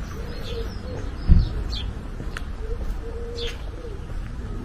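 Birds chirping outdoors with short, high, falling calls, and twice a longer, lower, steady call. A low rumble runs underneath, and there is a brief low thump about a second in.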